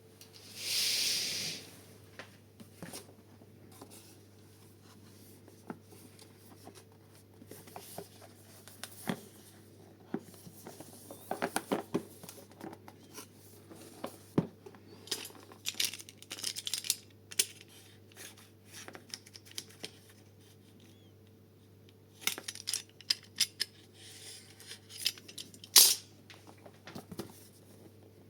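Cardboard and plastic packaging being opened by hand: one loud tearing rip about a second in, then short rustles, clicks and light taps as the box and its contents are handled.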